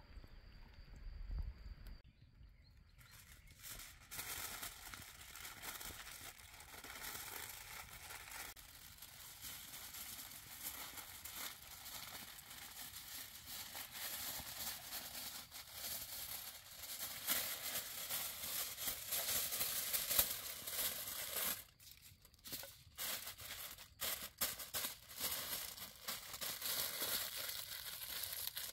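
Aluminium foil crinkling and rustling as it is wrapped and pressed by hand around a rabbit skewered on a wooden stick. It starts a couple of seconds in, goes on steadily, and breaks off briefly about 22 seconds in before resuming.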